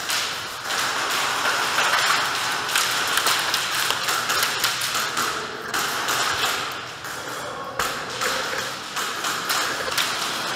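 Airsoft guns firing during play: dense runs of sharp clicking shots and BB impacts. They are loudest in the first few seconds and come in shorter clusters later on.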